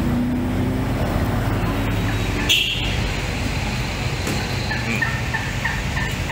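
Wild turkeys calling: one loud call about two and a half seconds in, then a run of about five short, evenly spaced notes near the end. A vehicle engine hums low and fades out within the first second or so.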